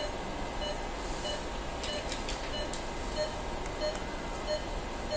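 Short electronic beeps repeating evenly, about three every two seconds, typical of an operating-room patient monitor sounding the pulse, over a low background hum with a few faint ticks around the middle.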